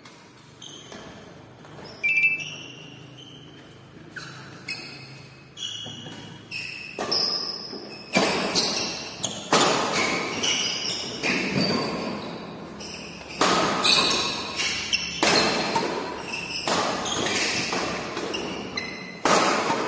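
Badminton rally: rackets striking a shuttlecock, each hit a sharp smack echoing in a large hall. The hits come a few seconds apart at first, then quicker and louder from about the middle on, roughly one a second.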